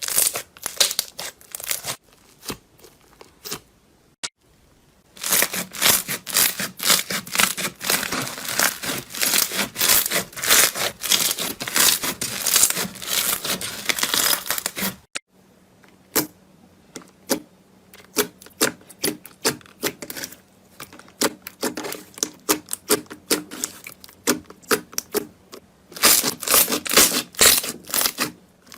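Slime being squeezed and pressed by hand, giving rapid crackling clicks and pops typical of crunchy slime. The sound breaks off and changes about four seconds in and again about halfway through, as one clip gives way to the next.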